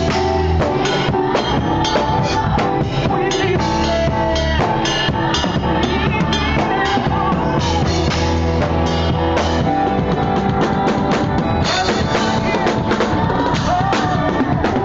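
Drum kit played hard and fast in a live band: rapid snare and tom strokes, bass drum and crashing cymbals, over sustained chords from the rest of the band.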